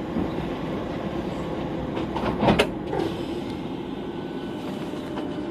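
Rubber-tyred VAL automated metro train running through a tunnel, heard from inside the car as a steady rumble. A brief loud clatter comes about halfway through.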